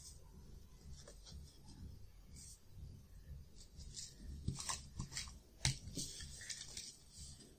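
Small plastic toy pieces clicking and rustling as hands pick them up, move them and set them down, with a run of sharper clicks in the second half.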